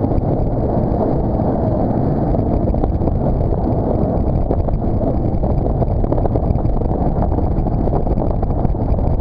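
Steady rush of wind buffeting the microphone, mixed with the drone of the towing motorboat's engine, while riding a banana boat being towed fast over the sea.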